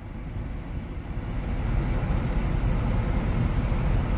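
Semi truck heard from inside the cab, moving in a storm: a low rumble of engine and road noise builds over the first couple of seconds, then holds steady.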